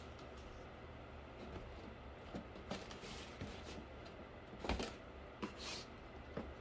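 Cardboard pieces being handled: a few light knocks and rustles, the clearest a little under 5 seconds in, over a faint steady hum.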